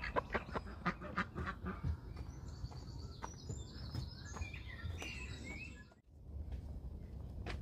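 Hens in a wire-mesh run clucking and calling, with a run of high, broken calls in the middle. The sound drops out suddenly near the end.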